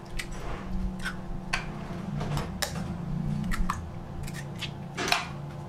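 Hen's eggs cracked on the rim of a glass mixing bowl and broken open: a scattered series of sharp clicks and taps of shell against glass.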